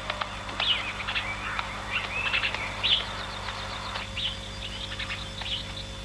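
Small birds chirping and twittering in quick, repeated short calls, over a low steady hum.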